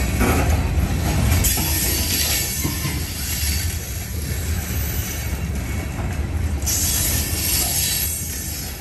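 Covered hopper cars of a long freight train rolling past: a steady low rumble and rattle of wheels on the rails, with a spell of high hiss about seven seconds in.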